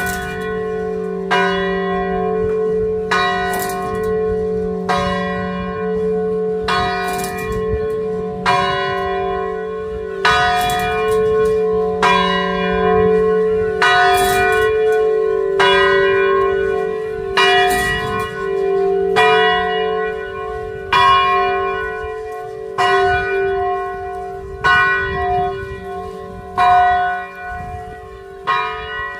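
Shitsu Church's bell tolling, struck at a steady, unhurried pace of about one stroke every second and three quarters. Each stroke rings on into the next, and the ringing grows weaker toward the end.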